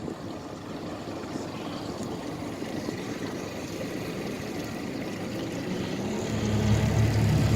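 Twin 60 hp Mercury four-stroke outboards running quietly in reverse, with water wash. About six seconds in, a deeper engine hum swells and grows louder.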